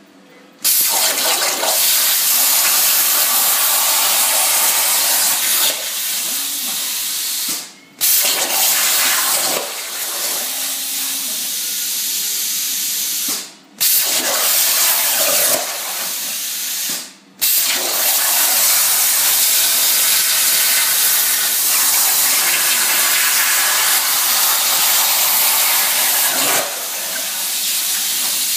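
Plasma torch on a home-built plasma table cutting: a loud, steady hiss of the arc and air jet that breaks off briefly three times and starts again.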